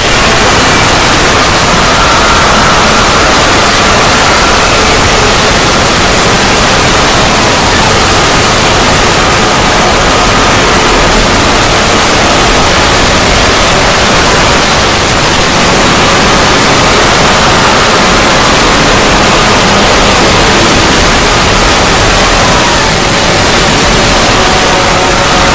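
Heavily distorted, very loud logo sound effect: a steady wall of hiss and static filling every pitch, with faint wavering tones underneath.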